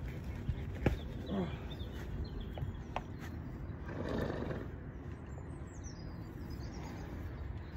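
Straw bales being handled and shifted by hand, a dry rustling that swells around four seconds in, over a steady low outdoor rumble; a single sharp click comes just under a second in.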